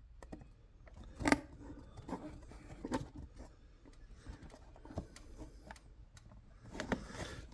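Plastic model-kit parts being pushed and fitted together by hand: scattered small clicks and knocks, the strongest about a second in, with light rubbing and handling noise. The piece is a snug fit.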